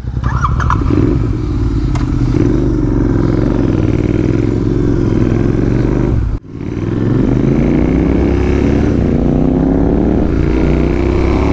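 Royal Enfield Interceptor 650's parallel-twin engine through an aftermarket AEW TE 101 exhaust, being ridden. The exhaust note holds fairly steady, breaks off sharply about six seconds in, then climbs steadily in pitch as the bike accelerates.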